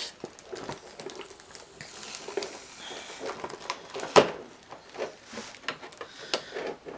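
Cardboard and plastic packaging being handled and opened: scattered light rustling and clicks, with one sharper knock about four seconds in.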